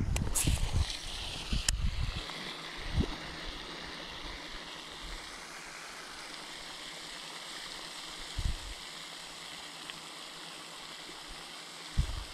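Gentle water sounds against a small boat over a steady outdoor hiss. A few low bumps and two sharp clicks come in the first two seconds, single soft knocks follow later, and more bumping starts near the end.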